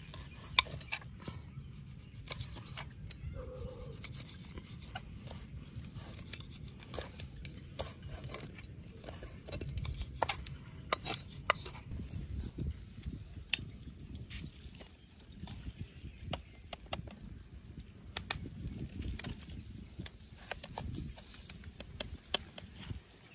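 Steel cleaver chopping red chili peppers on a wooden chopping board: irregular sharp knocks of the blade on the wood, with a low rumble underneath.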